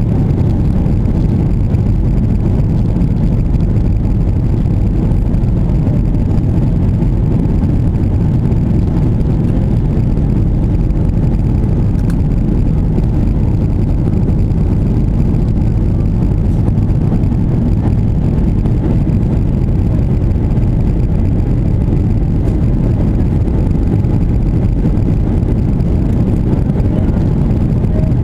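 Steady low rumble and rush of an airliner's jet engines and airflow, heard from inside the passenger cabin during the descent to land.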